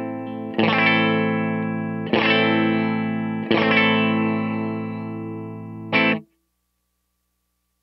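Fender Stratocaster electric guitar played through a DOD Overdrive Preamp 250 pedal, overdriven: three chords struck about a second and a half apart and left to ring out, then a short chord choked off sharply about six seconds in.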